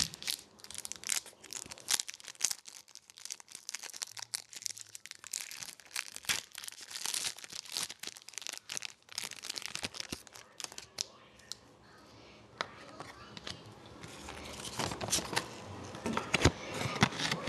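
Foil trading-card pack wrapper being torn open and crinkled by hand, a dense run of sharp crackles that thins out after about ten seconds and picks up again near the end.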